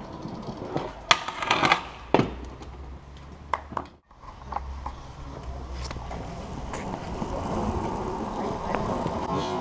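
Stunt scooter riding on a wet street: several sharp knocks of wheels and deck hitting the ground in the first few seconds, then, after an abrupt cut, the wheels rolling with a steady noise that slowly grows louder.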